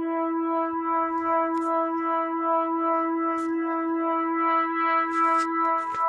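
Danish public warning siren holding a steady tone with a slight regular waver, the long constant tone of the all-clear signal in the yearly siren test. A few brief high clicks near the end.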